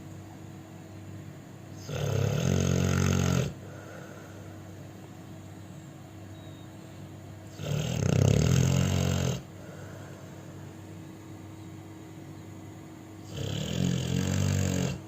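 A sleeping pit bull dog snoring loudly: three long snores about every five and a half seconds, each lasting about a second and a half.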